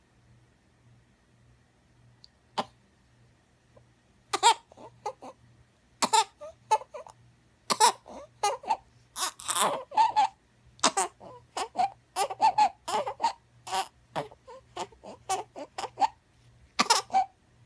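A baby fussing and crying in short, quick vocal bursts, starting about four seconds in, after a single sharp click.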